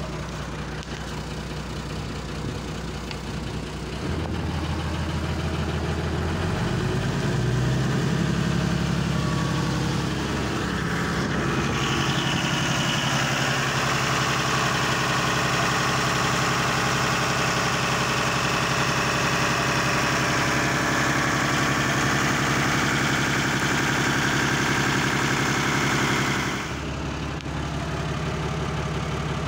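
Yanmar 6LP six-cylinder marine diesel engine running. It picks up speed with a rising pitch about four to eight seconds in, holds there louder, and drops back sharply near the end.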